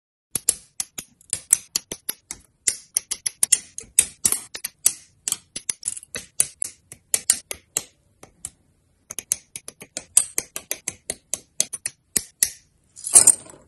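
Rapid, irregular sharp clicks of plastic Gunpla parts being snipped from their runner frames with hobby nippers and handled, pausing briefly about two-thirds of the way through. One louder, longer crackle comes near the end.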